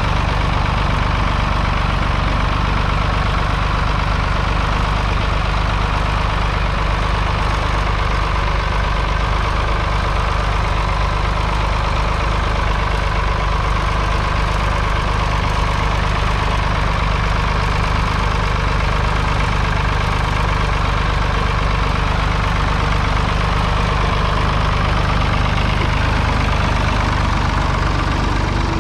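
Ford 3000 tractor's 2.9-litre three-cylinder diesel engine running steadily while pulling a two-furrow mounted plough through the soil.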